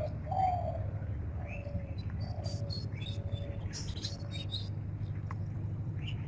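Birds calling: a short low call repeats roughly every 0.7 seconds, with scattered high chirps from small birds over a steady low hum.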